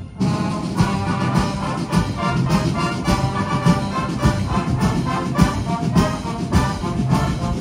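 Massed brass and drums of a large military marching band playing a brisk tune, the drum beat landing about twice a second under sustained brass chords, after a momentary break right at the start.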